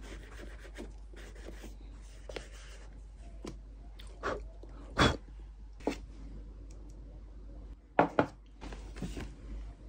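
Cloth rubbing a thick waxy shoe cream into a leather boot. A few sharp knocks stand out, the loudest about halfway through and near the end, as the boot is handled and set down.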